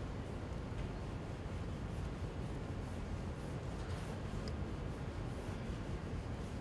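Pen scratching across paper in long sketching strokes, over a steady low room background.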